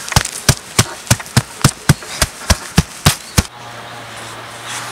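Quick, evenly spaced chops of a blade into a small tree trunk, about three or four strokes a second, a dozen in all, stopping about three and a half seconds in. A low steady hum follows.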